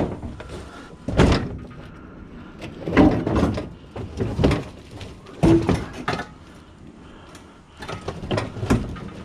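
Rusty metal tools being handled and tossed for scrap, clanking and knocking together in several separate impacts, a few of them ringing briefly.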